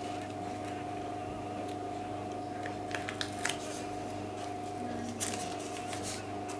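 Steady low hum at a few fixed pitches, with a few light clicks and rustles of hands handling materials at the bench, such as masking tape, a little after the middle and again near the end.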